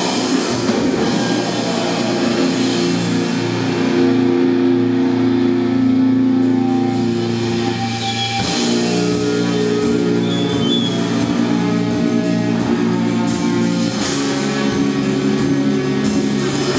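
A heavy metal band playing live: distorted electric guitars holding long sustained chords over a drum kit. The held chords shift about halfway through and again near the end.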